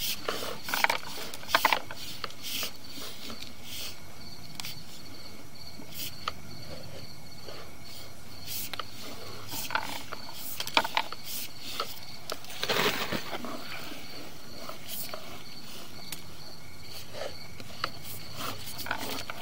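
Scattered clicks and knocks, with a louder cluster about two-thirds of the way through, as a sewer inspection camera's push cable is fed down the pipe. A steady high cricket chirring runs underneath.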